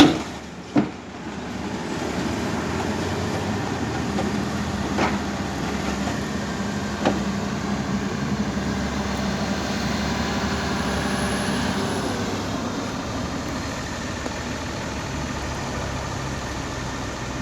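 CAT D6K crawler dozer's diesel engine running steadily under load, with a few sharp knocks, loudest about a second in and again about 7 seconds in.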